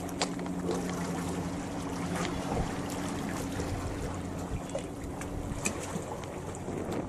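Seawater lapping and sloshing among concrete tetrapods at a harbour wall, a steady wash of water noise. A steady low hum runs underneath and fades out about two-thirds of the way through.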